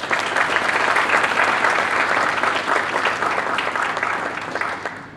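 Audience applauding at the end of a keynote speech, many hands clapping together, dying away near the end.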